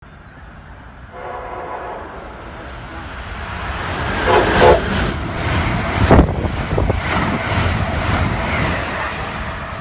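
A train horn sounds twice, the second blast louder, then an Amtrak passenger train led by an ACS-64 electric locomotive passes at speed with a loud, steady rush of wheels and air.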